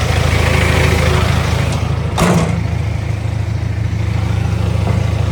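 Hitachi ZX250-5 excavator's diesel engine idling steadily, with a single sharp knock about two seconds in.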